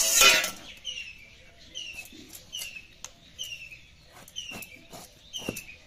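A bottle gourd being cut on a boti blade: a loud crunch as the blade slices into it right at the start, then a few faint knocks. Over it a small bird chirps over and over, about two short falling chirps a second.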